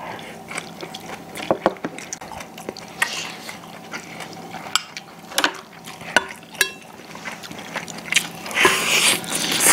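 Eating at the table: scattered clicks of chopsticks and a spoon against porcelain bowls and a stainless steel stew pot, with soft chewing between them. A longer, louder noisy sound comes near the end.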